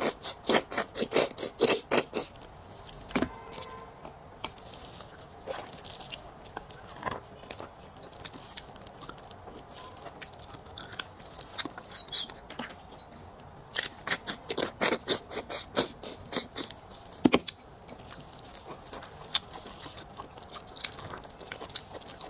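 Wet slurping and sucking at the open end of a braised beef bone as the marrow is drawn out, in two flurries of rapid smacking clicks, one near the start and one about two-thirds through, with a short high squeaky slurp about halfway. Sparse mouth clicks and chewing between.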